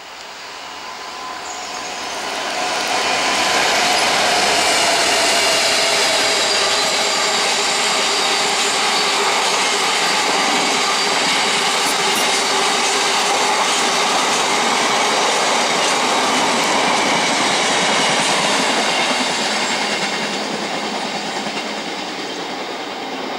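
A freight train of open box wagons passing at speed: a steady rumble of wheels on rail with high ringing and squealing tones from the wheels over it. It builds over the first few seconds and eases off near the end.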